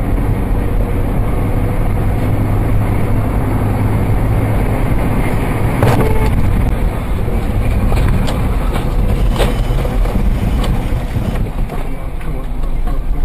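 Steady engine and road noise of a moving car, with a sharp knock about six seconds in and a few lighter clicks and knocks a couple of seconds later.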